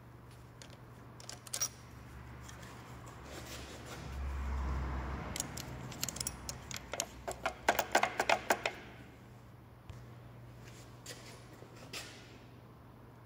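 Hand tools working on an engine cylinder head: a quick run of about ten sharp metallic clicks over a second and a half, like a ratchet wrench turning, with scattered clicks and a brief low rumble before it.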